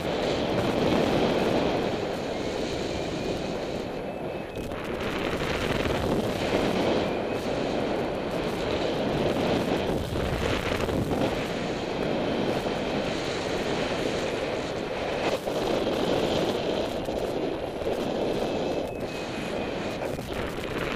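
Airflow buffeting a helmet-mounted camera microphone as a paraglider is winch-towed off the ground and up into the climb: a continuous rushing noise that swells and eases but never lets up.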